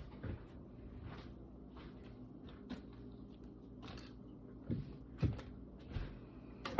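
Scattered light knocks and clunks of kitchen items being handled and set down, with a sharp thump at the very end.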